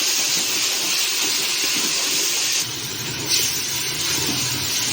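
Spice masala sizzling in hot ghee in a cooking pot as it is stirred, a steady hiss; about halfway through the hiss changes and a low hum joins it.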